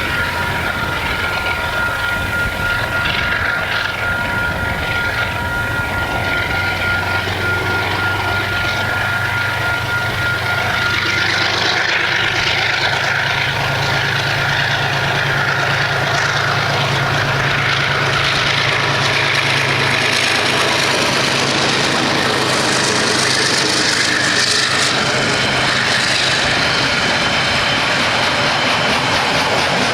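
DXC-class diesel-electric freight locomotives running, their engine drone growing louder and deeper about a third of the way in as the train draws closer. A thin steady high whine stops about eleven seconds in.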